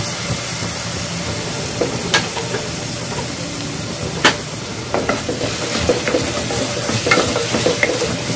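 Chopped onion and tomato sizzling in hot oil in a stainless steel pressure cooker, with a spatula knocking and scraping against the pan. There are a couple of sharp knocks about two and four seconds in, and busier stirring in the last few seconds.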